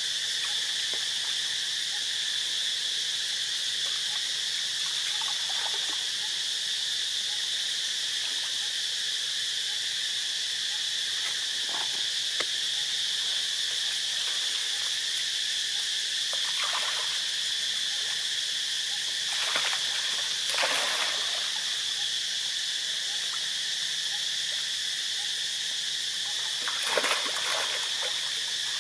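A steady, high-pitched insect chorus, with a few brief water splashes from macaques moving in shallow water, the loudest near the end.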